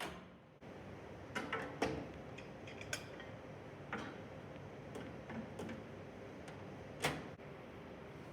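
Steady room hum with a handful of light, irregularly spaced clicks and knocks, the loudest about seven seconds in.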